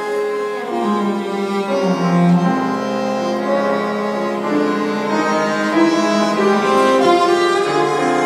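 Tango trio of bandoneon, cello and piano playing a slow piece, the bowed cello holding long notes over the bandoneon and piano.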